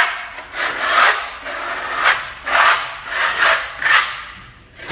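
Hand spatula scraping textured silver coating across a tabletop, drawing it off in about six sweeping strokes. Each stroke is a short rasping scrape that fades away.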